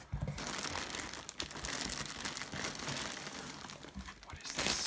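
Clear plastic packaging bag around a packed tent crinkling as it is gripped and lifted out of a cardboard box, with a louder burst of crinkling near the end.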